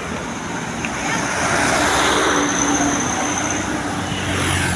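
Road traffic noise: a vehicle passing with a steady rush of engine and tyre noise that swells a little in the middle.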